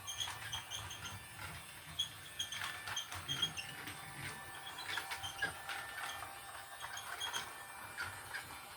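Toy steam train set running, with faint repeated high squeaks and scattered light clicks.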